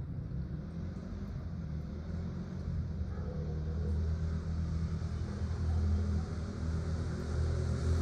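An engine running, its low hum getting steadily louder.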